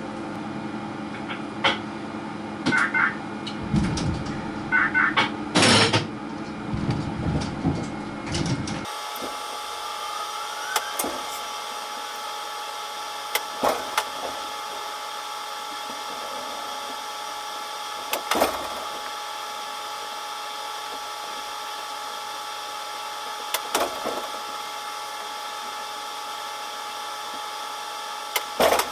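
Seoul Line 5 subway train's cab sound as it pulls out of the depot. It starts as a low steady hum with scattered knocks. About nine seconds in it switches to fourfold fast-forward, a high, steady whine of several held tones broken by an occasional sharp click.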